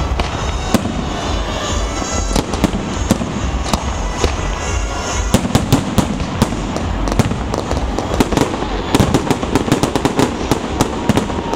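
Fireworks salute shells bursting: a string of sharp bangs and crackles, thickening into a rapid run of bangs from about nine seconds in.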